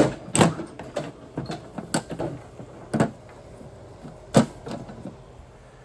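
A string of short, sharp clicks and knocks, coming irregularly, the loudest at about one, two, three and four and a half seconds in, over a faint steady low hum.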